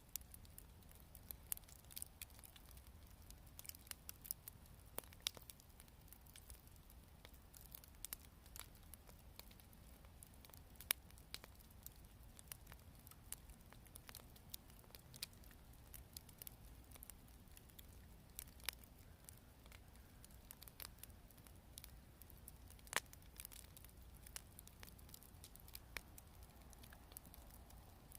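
Wood campfire crackling: irregular small sharp pops and snaps from the burning wood, with a couple of louder pops about eleven seconds in and again near the end.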